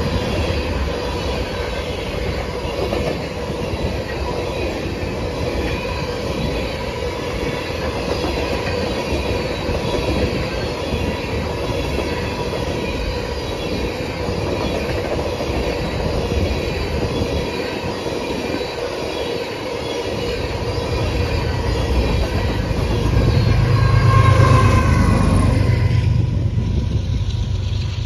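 Freight train of covered hoppers and tank cars rolling past: steady clatter of steel wheels on rail with a high wheel squeal running through it. The noise drops away about 26 seconds in as the last car passes, leaving a low rumble.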